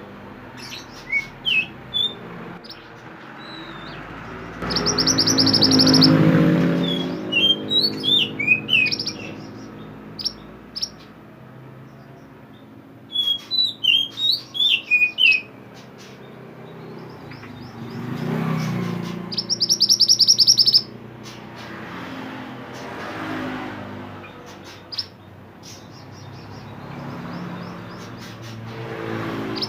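Mantenan songbird singing: scattered short chirps and sweeping whistled notes, broken by two fast trills, one about five seconds in and one about nineteen seconds in. A low rumble swells and fades underneath several times.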